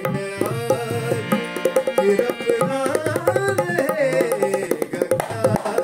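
Dholak drumming in a quick, steady rhythm under a melody whose notes slide and bend, starting abruptly.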